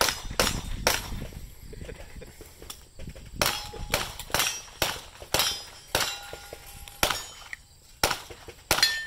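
A string of about a dozen gunshots at an irregular pace: a few at the start, a pause, then a quick run of shots. Several are followed by a short metallic ring.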